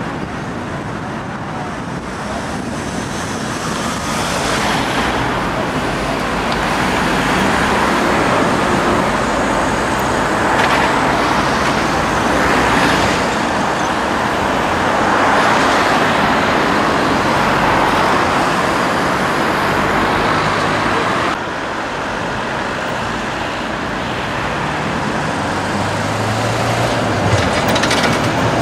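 Steady city street traffic: cars and buses passing, with a tram passing close near the end.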